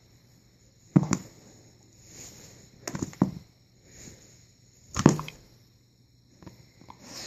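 Several sharp thuds with quiet between them: one about a second in, two or three close together around three seconds, the loudest about five seconds in, and lighter taps near the end.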